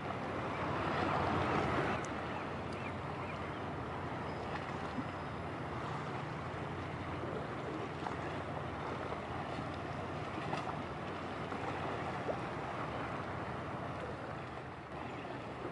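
Steady wind and sea noise with a low, steady engine drone from a passing ship. It is a little louder for the first two seconds.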